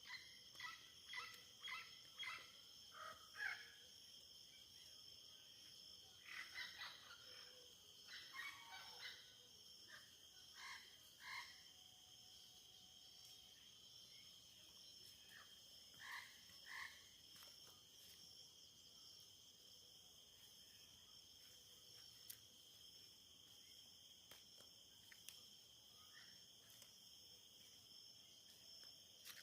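Frogs calling in bursts of short repeated notes over a steady, high-pitched insect trill that never stops. The calls come thickest in the first dozen seconds and again briefly later on.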